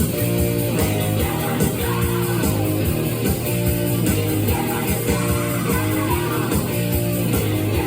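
Rock music led by guitar, playing at a steady level with a regular run of notes.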